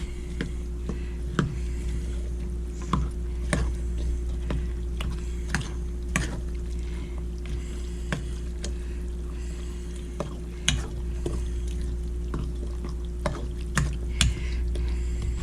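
A utensil mixing thick cornbread dressing in a dish, with irregular knocks and scrapes against the dish. Under it runs a steady low hum.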